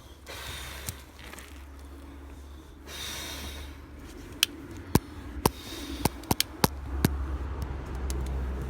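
Small campfire of twigs burning, crackling with a soft hiss and then a quick run of sharp, irregular pops, most between about four and seven seconds in, over a low steady rumble.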